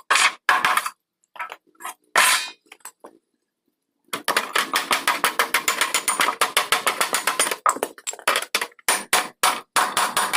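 Ratchet wrench clicking, a few short strokes first, then after a brief pause a long run of fast, even clicks, about six to eight a second.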